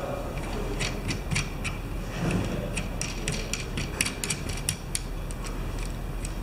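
Irregular light metallic clicks and ticks, several a second, as the bearing tension nut is spun by hand down the threaded axle of a Shimano Nexus 3-speed hub and brought up finger-tight against the bearing.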